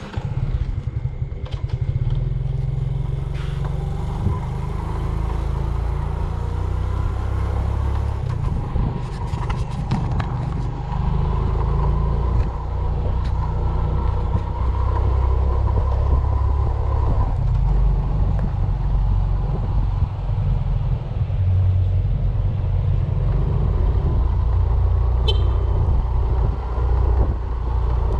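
A motor vehicle under way: steady engine and travel noise, a heavy low rumble with a few faint clicks.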